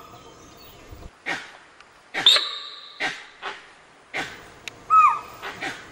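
Alarm calls of langur monkeys, sambar and spotted deer (chital) at a tiger: a run of about eight short, sharp barks, some carrying a clear high note that drops at the end, the loudest a little over two seconds in.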